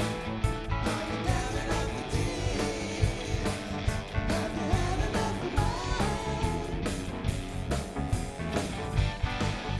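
A rock band playing a '70s-style song: drums keeping a steady beat under bass and guitar, with singing over the top.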